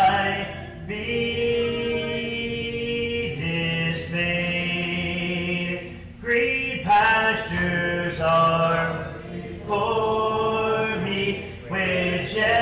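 Congregation singing a hymn a cappella, without instruments, led by a man's voice, in long held notes with several voice parts sounding together.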